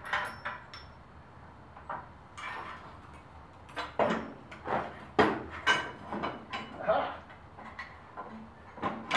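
Steel mounting-frame parts clanking and clinking as they are lifted and fitted against a Farmall Cub tractor: a string of sharp metal knocks, most of them close together around the middle.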